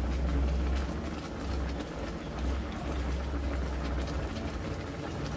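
Chicken adobo simmering in an electric wok, the sauce bubbling faintly over a steady low rumble.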